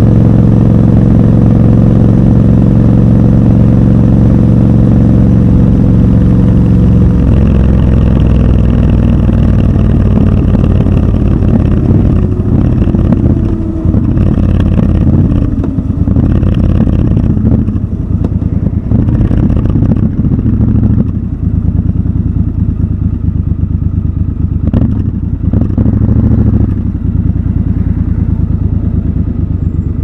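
Triumph Scrambler motorcycle engine heard from the rider's seat, holding steady revs for the first few seconds. Its pitch then slowly falls and the sound turns uneven as the bike slows with the throttle closed, with a few short knocks in the second half.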